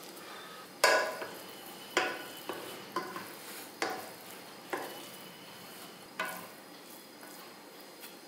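Cooked pulao rice being stirred and fluffed with a spatula in a metal pressure cooker. The spatula knocks sharply against the pot about seven times in the first six seconds, the loudest about a second in, with soft rustling and scraping of rice between the knocks.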